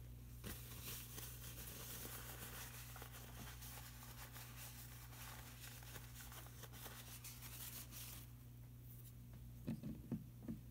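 A paintbrush scrubbing on paper in quick, scratchy strokes for about eight seconds. It stops, and a few soft knocks follow near the end.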